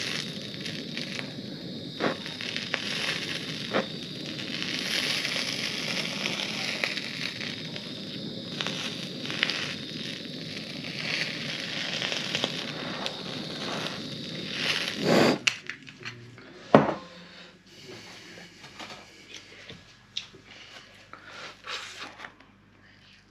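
Handheld kitchen blowtorch hissing steadily with crackles as its flame melts cheese slices on a burger. It stops about two-thirds of the way in, followed by a couple of sharp knocks and quieter handling.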